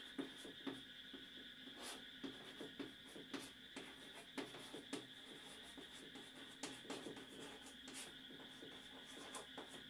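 Chalk tapping and scraping on a chalkboard as words are written by hand: a string of quick, irregular taps, several a second.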